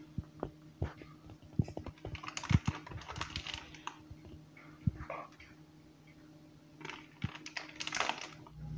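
A metal spoon clicking and tapping against a pot and a plastic bag as soft churro dough is scooped into the bag, with the plastic crinkling now and then.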